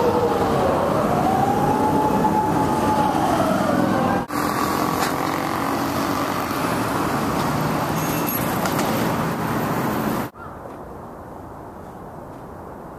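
A siren wailing, its pitch sliding up and down over traffic noise for about four seconds. Then come abrupt cuts to a few seconds of busy street noise and, near the end, a quieter steady hum.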